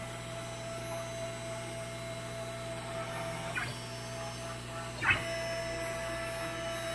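CNC router carving a 3D relief in wood: a steady machine hum with a held tone from the motors. There is a short knock about three and a half seconds in and a louder one about five seconds in.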